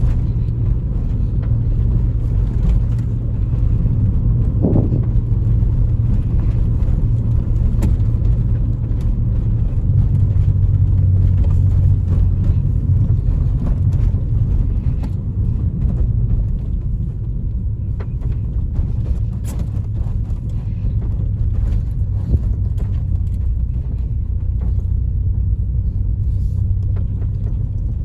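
Honda Civic EJ9's four-cylinder engine running with a steady low rumble while the car is driven, the engine misfiring on all four cylinders (misfire codes 71–74).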